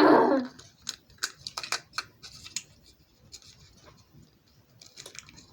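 Quick, irregular clicks and snaps of small hard plastic toy parts being handled and pressed together, thick in the first couple of seconds and then only now and then.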